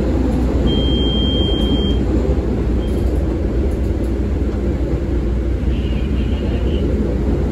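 CTA 5000-series rapid-transit car running along the track, heard from inside the car: a steady rumble of wheels and motors. A brief high-pitched whine comes in about a second in and lasts just over a second.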